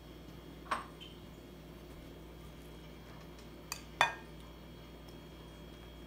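Metal serving spoon clinking against the bowls while scooping ceviche: one clink about a second in and a louder, briefly ringing clink about four seconds in.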